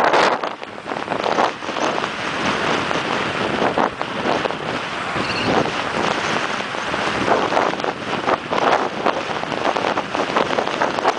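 Wind rushing over the microphone of a mountain bike's onboard camera on a fast downhill run, with the bike rattling and knocking over rough, rutted dirt.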